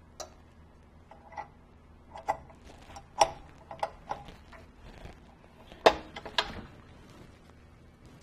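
Irregular light clinks and knocks of utensils and hands against a stainless steel stand-mixer bowl as it is loaded and set up, about a dozen taps, the loudest a little before six seconds in.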